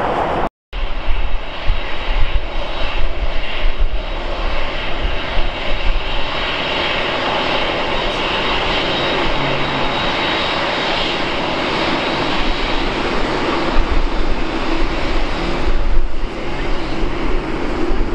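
Jet engines of a taxiing Lufthansa Boeing 747, a steady rumble and hiss that swells in the middle. The sound cuts out for a split second just after the start.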